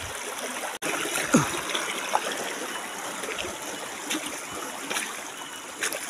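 Shallow rocky stream running steadily, with feet stepping and splashing through the water now and then. About a second and a half in there is a brief sound falling in pitch.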